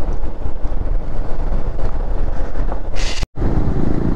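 Wind buffeting the microphone of a camera on a moving motorcycle, over the low rumble of the engine and road. About three seconds in there is a short hiss, and then the sound drops out for an instant.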